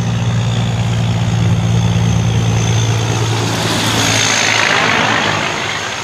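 Diesel engine of a long-nose semi-truck running steadily as the rig drives past. A rush of tyre and wind noise swells as the trailer passes close, about four seconds in.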